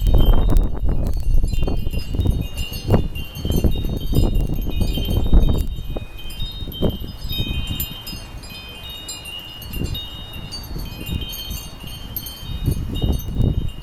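Wind chimes ringing and clanking continuously in a gusty windstorm. Heavy wind buffets the microphone with low rumbling gusts, strongest in the first half, easing after about seven seconds and picking up again near the end.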